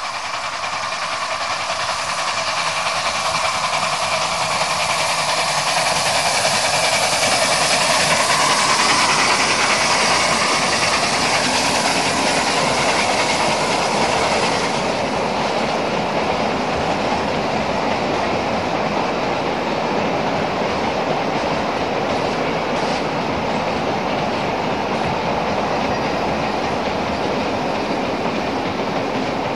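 Sound-equipped HO-scale model freight train of hopper wagons running past, with wheels clicking over the rail joints. It builds to its loudest about a third of the way in, then runs on steadily.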